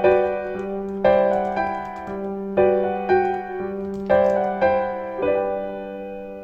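Calm background piano music: soft chords struck about once or twice a second over a held low note, each ringing and dying away, with the last chord fading out near the end.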